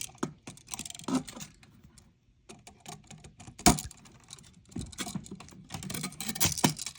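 Irregular small clicks and scrapes of hand tools and copper wire as the ground wire is hooked around a wall outlet's green ground screw. There is a brief lull about two seconds in and one sharp click a little past halfway.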